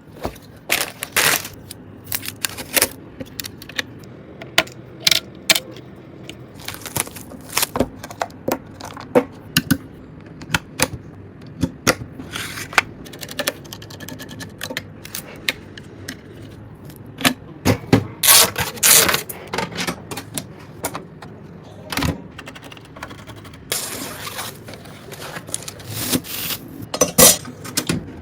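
Computer parts being handled and fitted during a PC build: irregular sharp clicks, taps and scrapes of metal and plastic, with a few short rustling bursts.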